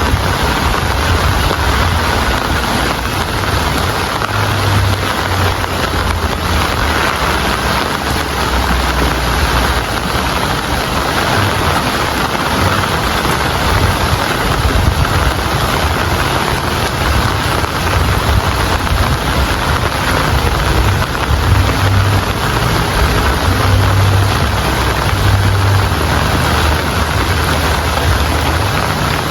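Steady rain falling, a dense even hiss, with a low rumble underneath that swells and fades.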